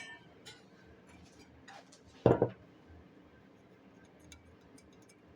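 Faint clinks and light taps of metal parts being handled, with one louder knock a little over two seconds in.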